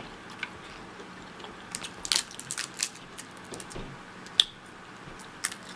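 Close-miked eating of a sauce-drenched seafood boil: crab shell crunching under the teeth, with wet, squishy mouth sounds. Scattered sharp clicks and crackles, thickest about two seconds in, with one sharp crack near the end.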